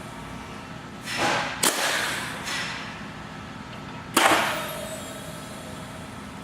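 Tippmann Clicker steel rule die cutting press being worked through stiff leather on a second pass: a sliding scrape about a second in that ends in a sharp clunk, then a second loud clunk a few seconds later that dies away over about a second.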